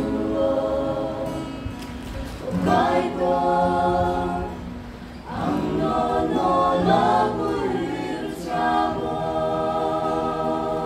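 A mixed group of women and men singing a Kokborok gospel song in harmony, in four long phrases that each end on a held chord.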